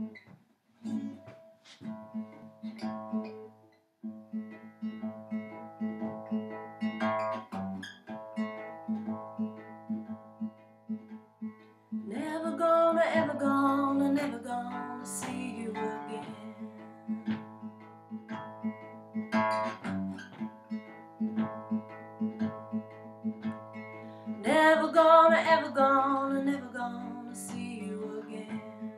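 Fender acoustic guitar fingerpicked in a steady repeating blues pattern. A woman sings over it in two phrases, about twelve seconds in and again about twenty-five seconds in, and these are the loudest moments.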